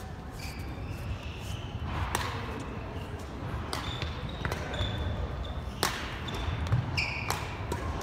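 Badminton being played on a hardwood gym court: a few sharp hits of rackets on shuttlecocks and short squeaks of sneakers on the floor, over the steady hum of a large hall.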